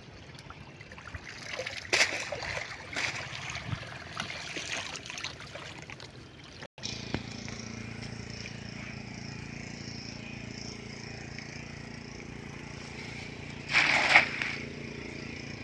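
River water splashing and sloshing in uneven bursts as a fishing net is worked in the water, with a louder splash near the end.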